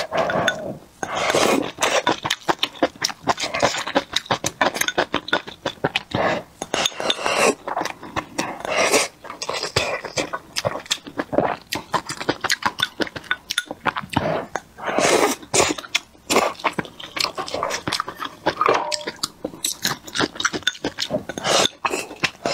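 Close-miked eating: wet slurping and chewing of spicy sour soup with pickled cabbage and noodles, with small clinks of wooden chopsticks against a ceramic bowl.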